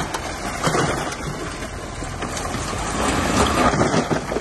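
Bulldozer at work: engine running under load with irregular crunching and scraping of dirt and stone, loudest about three to four seconds in.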